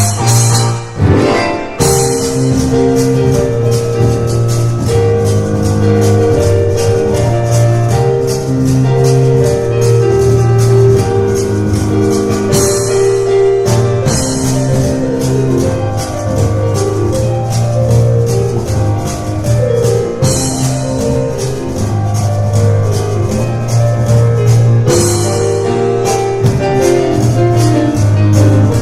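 Piano and cajón playing a fast instrumental together: sustained piano chords and runs over dense, rapid cajón strikes, with a brief break about a second in before the full sound comes back.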